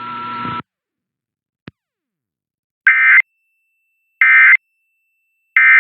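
Three identical short bursts of Emergency Alert System SAME digital data tones, about a second apart: the end-of-message code that closes the test. Before them, a hiss with a faint steady tone cuts off about half a second in, and a single click follows.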